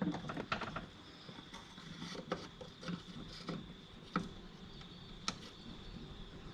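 Irregular light clicks and taps of a plastic door handle surround being handled and pressed into place on a car door, with a sharper click about four seconds in and another past five seconds.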